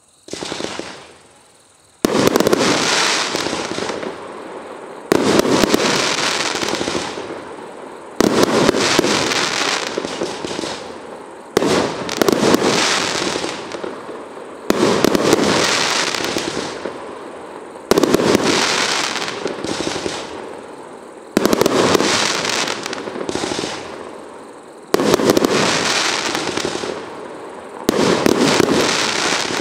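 A 72-shot, 25 mm professional firework display cake firing, its shells bursting into crackling pistils. A fresh sharp burst comes about every three seconds, each followed by a dense crackle that fades away before the next.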